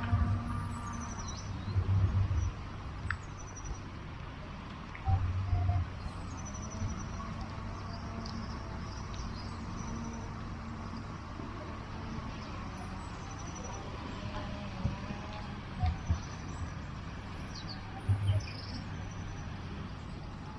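Small birds chirping now and then, short high calls that drop in pitch, over a steady background hiss, with a few brief low muffled thumps on the microphone.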